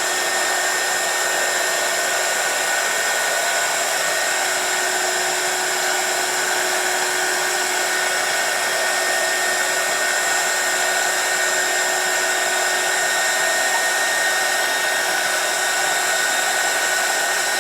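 Hot air gun blowing steadily, its fan and air stream making an even rush with a constant whine, shrinking heat-shrink tubing over a soldered wire joint.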